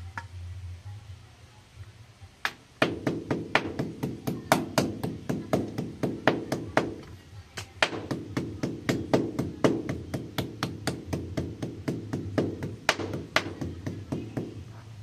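Chef's knife striking a thin slice of pork on a plastic cutting board over and over to tenderize it, about three sharp strikes a second. The strikes begin about two and a half seconds in, pause briefly near the middle, and go on until near the end.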